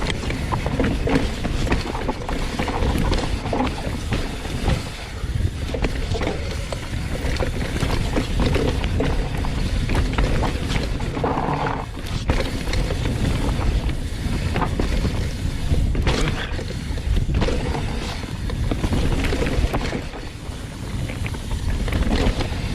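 Riding noise from a hardtail mountain bike descending a loose dirt trail: wind rushing over a helmet-mounted action camera's microphone, tyres on dirt, and the frame and chain rattling, with frequent knocks over bumps.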